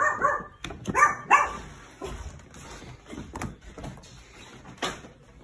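A dog barking, short loud calls just after the start and again about a second in, followed by a few scattered thumps.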